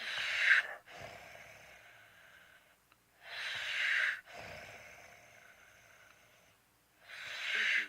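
A sleeper snoring: three noisy, rasping breaths about three and a half seconds apart, the first the loudest.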